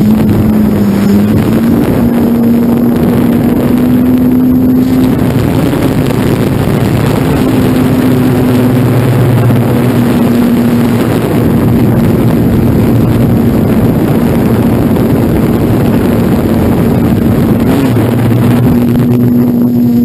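An FPV model aircraft's motor and propeller running steadily, heard from the onboard camera, with wind rushing over the microphone; the motor's pitch wavers slightly.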